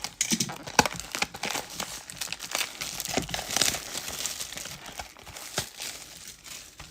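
Plastic wrapping on a box of trading cards crinkling and tearing under the hands as it is opened, in quick, irregular crackles.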